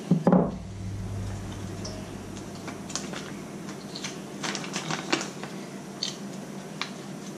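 A spoon tapping and scraping as icing is knocked into a piping bag: scattered light clicks and taps, with a quick run of them about four and a half to five seconds in.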